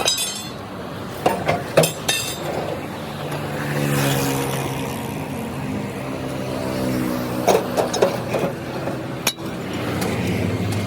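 Sharp metal clinks and knocks in two clusters, a few in the first two seconds and a few more near the end, over the steady sound of a vehicle engine running, whose pitch shifts briefly in the middle.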